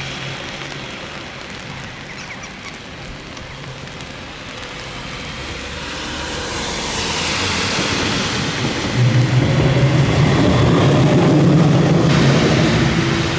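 A tram approaching and passing, its noise building from about six seconds in and loudest over the last few seconds, where a steady low hum comes in.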